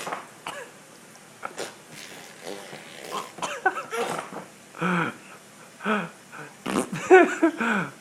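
Baby blowing raspberries, sputtering lip 'fart noises', then making short babbling vocal sounds from about three seconds in, loudest near the end.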